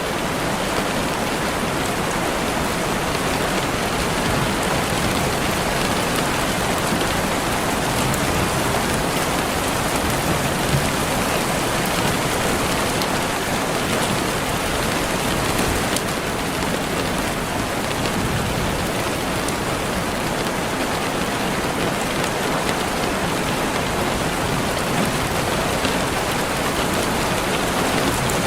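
Steady heavy rain falling on a surface, a dense even hiss with scattered individual drop ticks.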